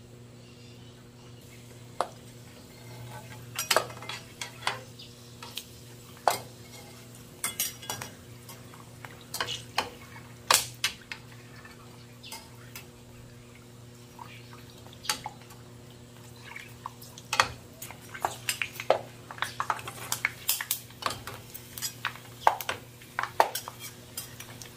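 A metal utensil clinking and knocking against a cooking pot of hot fat. The clinks are irregular and come more thickly in the second half, over a low steady hum.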